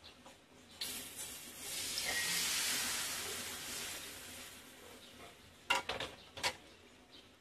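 Hot oil sizzling in a wok over a charcoal fire as batter goes in for bánh xèo, the sizzle swelling for a couple of seconds then dying down. A few sharp knocks follow near the end.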